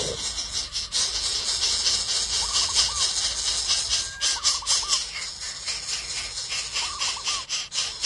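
Greater coucal chicks begging in the nest: a constant harsh hiss, broken three times by short bursts of quick, wavering notes.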